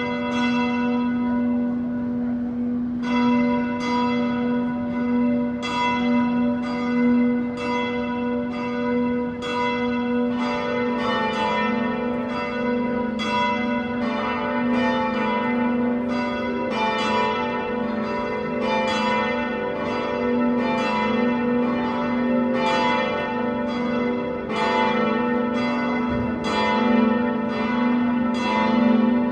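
Church bells ringing, several bells of different pitch struck in turn about once a second, each stroke ringing on as the next sounds, over a steady low hum.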